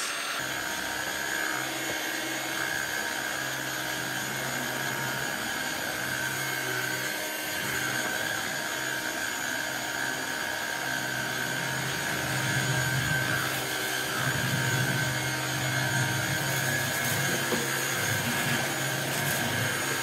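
Black+Decker Powerseries+ 16V MAX cordless stick vacuum running, its motor giving a steady whine over rushing air as it is pushed across a hard floor. It gets a little louder about halfway through.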